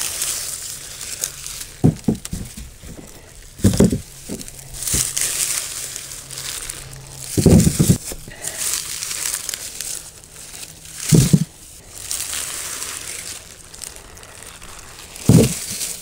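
Onion plants being pulled and handled, their leafy tops rustling and crackling in uneven waves. There are several short low thumps along the way.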